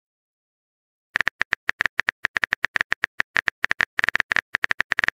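Rapid keyboard tap sound effects from a texting-story app, one short click per typed character. They start about a second in and come at an uneven pace of several clicks a second.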